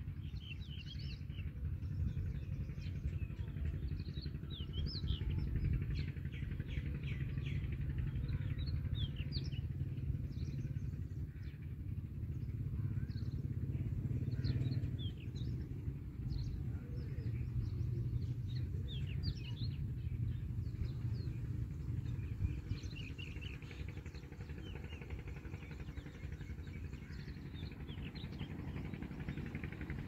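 Many short, quick bird chirps scattered throughout over a steady low rumble.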